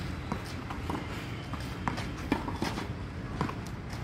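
Footsteps and scattered sharp taps on a clay tennis court, irregular and a few a second, the loudest about two seconds in, over a steady low background rumble.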